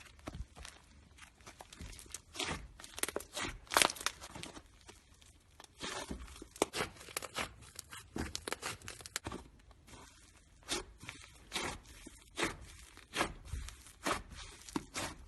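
Slime being squeezed and stretched by hand, giving irregular sticky crackles and popping clicks, loudest about four seconds in.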